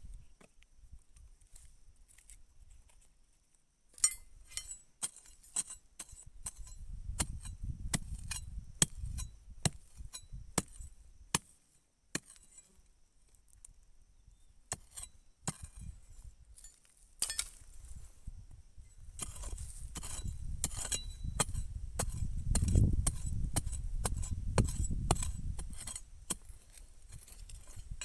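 Metal digging blade chopping into hard, stony soil around a shrub's roots: a long run of sharp clinks and knocks as the steel strikes earth and stones, starting about four seconds in. Two stretches of low rumbling run under the strikes, one near a third of the way in and a longer one past the middle.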